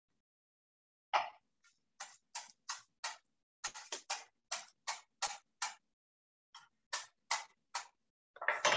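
Chef's knife chopping chives on a wooden cutting board: a run of quick chops at about three a second, a short pause, then a few more.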